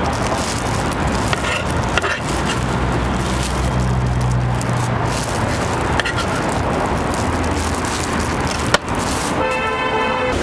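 Steady street noise with road traffic, marked by a few sharp clicks. Music comes in near the end.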